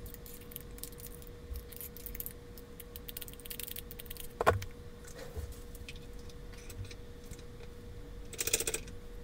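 Small metal clicks and clinks of a screwdriver working against a Penn 330GTI fishing reel's spool shaft and bridge, prying at a pinion gear seized to its shaft by rust. There is a sharp click about four and a half seconds in and a jangling clatter of metal near the end.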